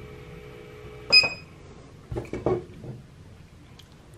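Mini drone's small motors running at idle with a steady whine, cutting off about a second in with a sharp, ringing clink. A few soft, short sounds follow.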